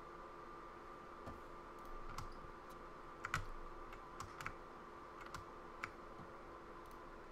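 Computer keyboard keys tapped in a scattered, irregular run of clicks between about one and six seconds in, over a steady background hum.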